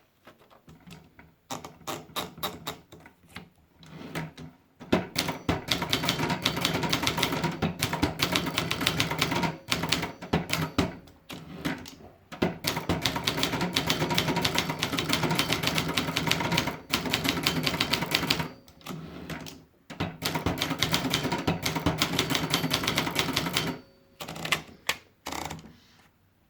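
Brillant 750 typewriter being typed on: fast runs of key strikes, many a second, broken by short pauses, with sparser strikes at the start and near the end.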